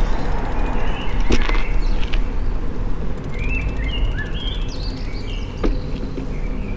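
Steady wind and road rumble on the microphone of a moving bicycle, with small birds chirping in short rising and falling notes, mostly in the second half. Two sharp knocks, about a second and a half in and near the end, from the bike going over bumps.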